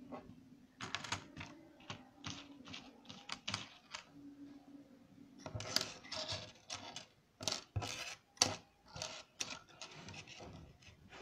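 Irregular clicks and taps of fingers handling small electronic components, a resistor's wire leads being joined to a BD139 transistor, against a wooden tabletop. The clicks come in quick clusters, with a short pause about four seconds in.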